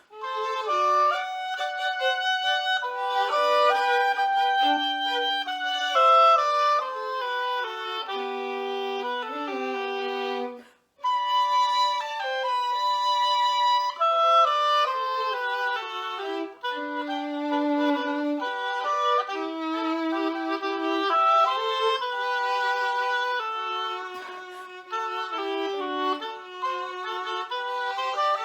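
A classical duet of two melodic instruments playing interweaving lines with no bass, in a brisk, lively style. The playing breaks off for a moment about 11 seconds in, then carries on.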